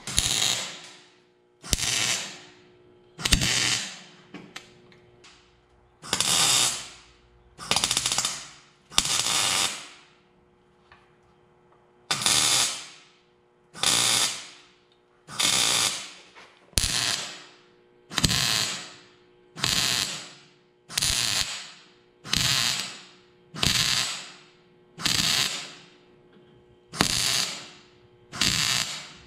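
MIG welder laying a string of short welds: crackling, sputtering arc sounds in about seventeen bursts, each about a second long and roughly a second and a half apart, with a faint steady hum underneath.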